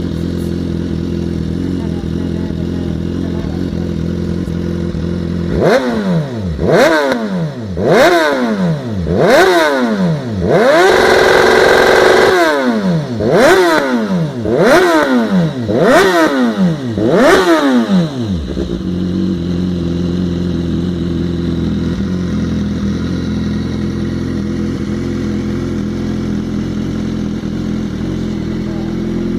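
BMW S1000R's inline-four engine running loud through a new aftermarket sport exhaust: idling, then blipped sharply about eight times with one longer held rev in the middle, the revs dropping away after each blip, then settling back to a steady idle.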